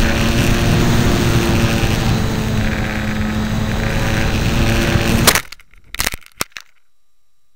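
HobbyZone Super Cub RC plane's electric motor and propeller running with a steady whine over wind rush at the onboard camera, cut off suddenly about five seconds in by the crash impact. A few sharp knocks follow within the next second or so as the plane hits and comes to rest, breaking a wing, then only a faint hum remains.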